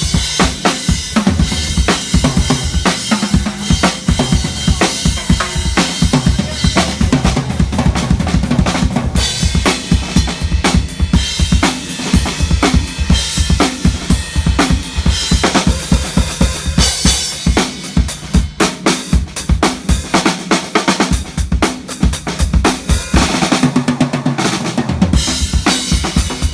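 Drum kit playing a steady, fast beat on kick drum and snare with cymbals, loud throughout.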